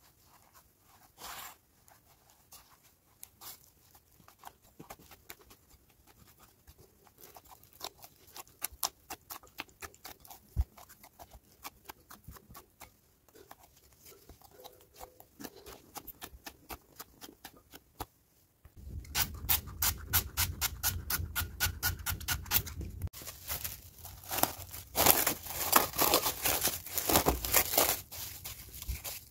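Hands kneading soft bread dough in a glass bowl: a quiet stream of small sticky clicks. From about two-thirds of the way through, much louder dense crinkling of plastic cling film being handled and stretched over the bowl.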